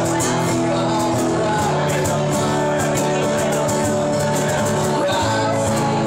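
Live band playing: two acoustic guitars strummed over a Tama drum kit with cymbal hits keeping a steady beat.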